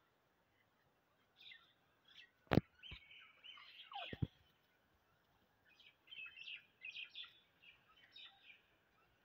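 Outdoor birds chirping in many short calls throughout. A single sharp knock about two and a half seconds in, and another short knock with a brief falling call around four seconds in.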